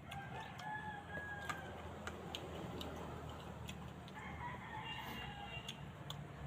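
Roosters crowing twice, one call near the start and another about four seconds in, with scattered sharp clicks in between.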